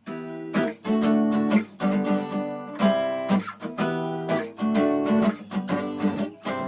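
Acoustic guitar strummed in a steady rhythm, starting abruptly: the chord intro of a song.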